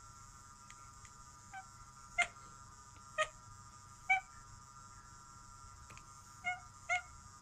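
A cat giving short chirping calls, about six of them roughly a second apart, with a gap in the middle before two quick ones near the end.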